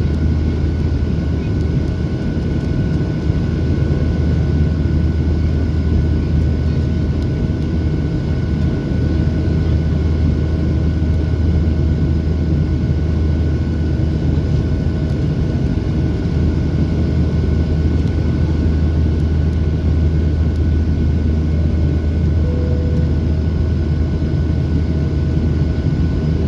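Steady cabin drone of a Boeing 737-800 in flight: its CFM56-7B engines and the rushing air over the fuselage heard from inside, a constant low hum with a few faint steady whine tones above it.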